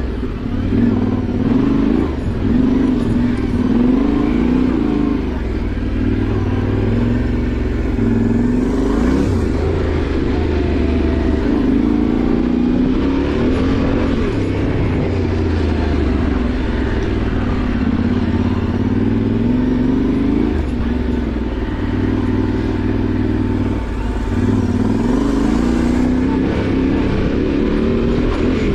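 Yamaha Ténéré 700's parallel-twin engine running under a rider off-road, its note rising and falling over and over with the throttle.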